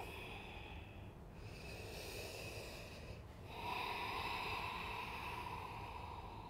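A person breathing slowly and audibly, in three long, soft breaths; the last and loudest begins about three and a half seconds in.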